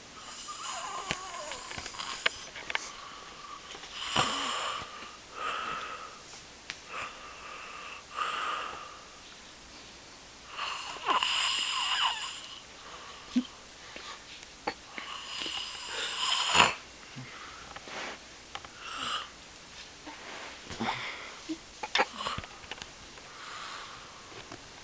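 A person snoring: noisy, rasping breaths at uneven intervals, some short and some drawn out for over a second, with the loudest about sixteen seconds in.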